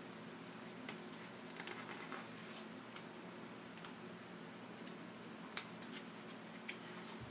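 A few faint, sharp clicks and taps, irregularly spaced, over a low steady hum: small handling noises in a quiet room.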